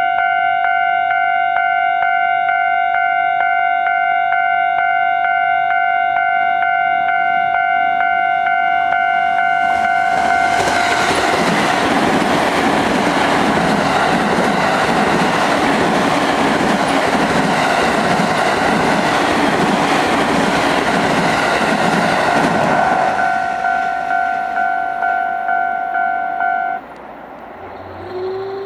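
Japanese railway level-crossing warning bell ringing in a steady, even rhythm. About ten seconds in, a train passes over the crossing for around twelve seconds: a loud rumble with the clickety-clack of wheels over rail joints, louder than the bell. After the train the bell rings on a few seconds more and stops shortly before the end.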